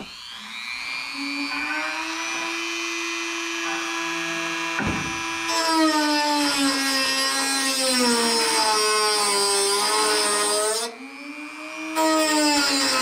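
Handheld rotary tool with a small cut-off wheel whining as it spins up, then cutting into the sheet steel of a car's rocker panel: louder and harsher, its pitch sagging under load. It stops about eleven seconds in and starts again a second later.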